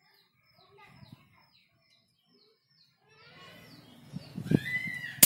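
Small birds chirping, then a rooster crowing from about three seconds in. Right at the end comes a single sharp crack: a shot from a Sharp Innova II air rifle.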